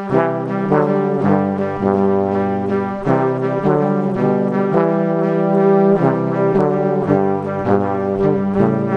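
Background music of held chords that change every half second to a second or so, with a steady, even level.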